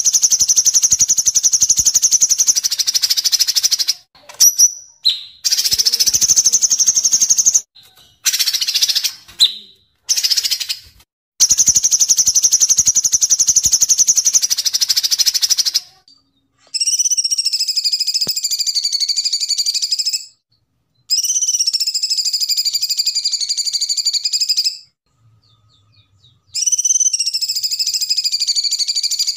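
Kapas tembak and cucak cungkok songbirds singing: first a series of long, very fast trills in bursts of one to four seconds, then, from about halfway, long wavering whistled phrases of three to four seconds each, with short pauses between them.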